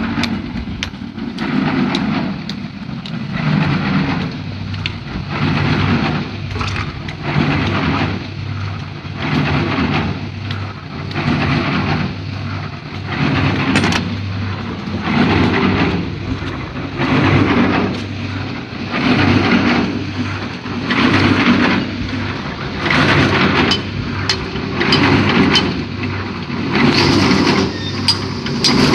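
Heavy diesel machinery running steadily at a concrete pour, with a low hum and a rhythmic surge of noise about once a second.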